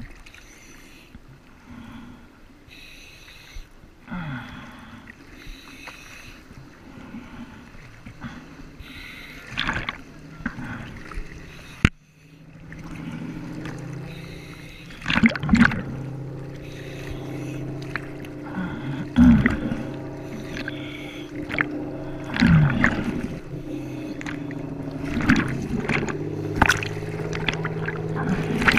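Choppy seawater sloshing and splashing around a camera held at the water's surface. About halfway in, a dive boat's engine comes in underneath, running steadily close by, with louder splashes over it several times.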